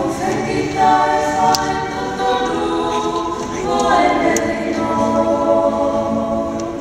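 Several voices singing a hymn together in long held notes, with a strummed acoustic guitar underneath.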